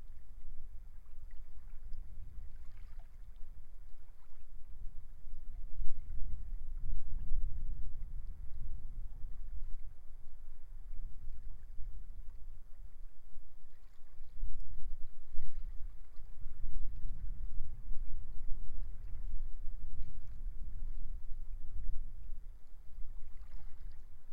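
Strong wind buffeting the microphone in a low, gusting rumble that swells and eases, over faint waves washing in on the shore.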